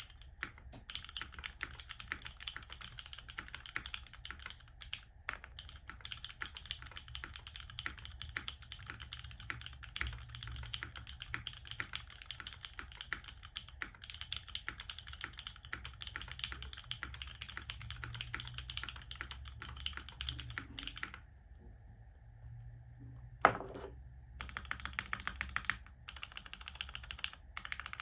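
Continuous fast typing on a 60% custom mechanical keyboard with Cherry MX Black linear switches, a carbon fibre plate, o-ring mounting and GMK keycaps. The typing stops for a few seconds about three-quarters of the way through, broken by a single loud knock, then resumes.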